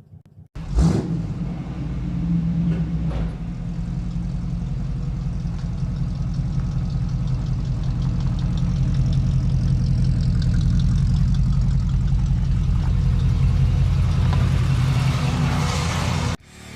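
Pickup truck engine running steadily after a loud start about half a second in, growing slightly louder, then cutting off suddenly near the end.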